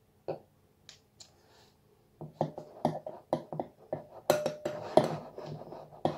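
A metal spoon stirring in a glass measuring jug: a few lone clicks, then from about two seconds in the spoon clinks and scrapes against the glass about three times a second, and the glass rings briefly.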